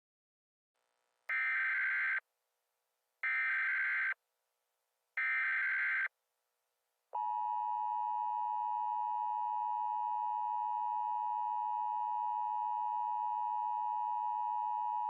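Emergency Alert System tones: three short, screechy data bursts of the SAME header about two seconds apart, then the steady two-tone attention signal held for about eight seconds before cutting off.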